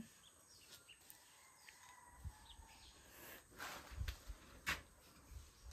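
Faint birds chirping, with a few soft knocks in the second half over quiet background noise.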